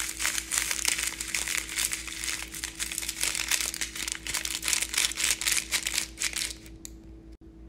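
A Maggi Magic Sarap seasoning sachet crinkling in the hand as it is shaken and squeezed to pour out its granules, a rapid run of crinkles that stops about six and a half seconds in.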